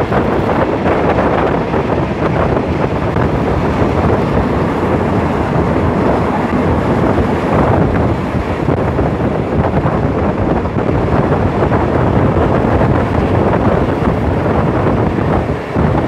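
Wind buffeting the microphone held out of a moving passenger train's window, over the steady running noise of the train.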